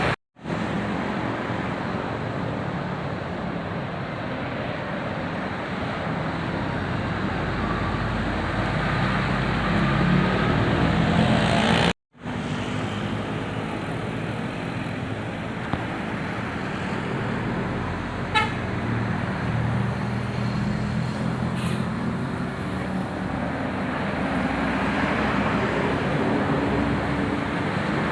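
Road traffic noise of buses passing, with a bus's telolet horn sounding.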